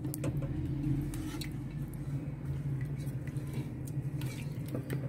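A spoon stirring pressure-cooked beef in its broth in a metal pressure cooker pot: liquid squishing, with a few light clicks of the spoon against the pot over a steady low hum.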